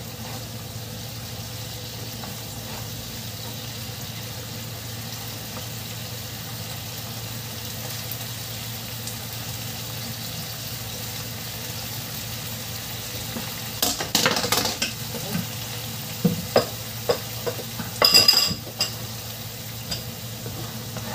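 Black bean sauce simmering and sizzling in a nonstick frying pan as a plastic slotted spatula stirs it. About two-thirds of the way in, the spatula scrapes and knocks against the pan several times, loudest near the end.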